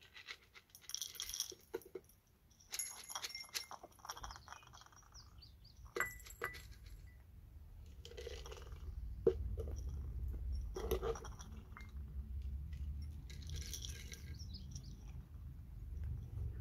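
Dry cat kibble rattling in a clear plastic jar and spilling into feeding bowls in several short bursts, with small clinks. A low rumble grows from about eight seconds in.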